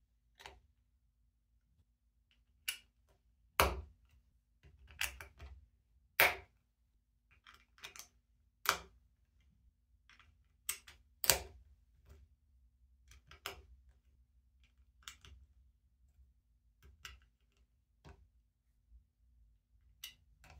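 Plastic Lego pieces clicking and tapping as they are picked up and pressed onto a grey plate, in irregular separate clicks a second or two apart, a few of them sharper and louder than the rest.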